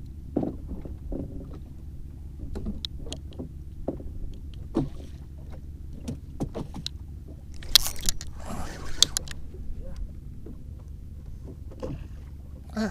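Small wooden boat being paddled: scattered knocks and clicks of the paddle and gear on the wooden hull over a low steady rumble, with a louder short rush of noise about eight seconds in.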